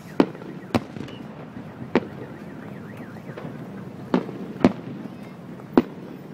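Aerial fireworks shells bursting: six sharp bangs at uneven gaps of about half a second to two seconds.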